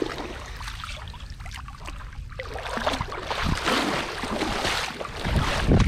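Water splashing and dripping against a small boat, with wet rustling and small knocks as fish are picked out of a gill net; a louder low rumble comes near the end.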